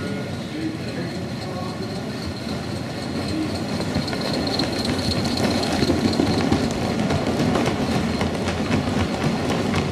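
Gauge 1 model steam locomotive and its train of carriages running along the track, the wheels rumbling and clicking over the rail joints. The sound grows louder about three seconds in as the train comes close, and is loudest around the middle as the carriages pass.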